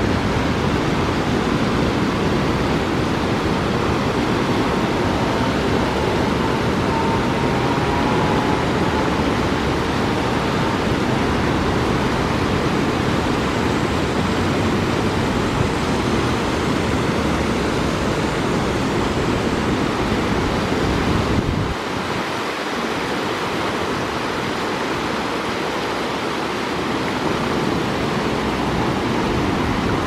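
River water rushing over shallow rapids below a low weir, a steady even noise. A low rumble underneath drops away about two-thirds of the way through.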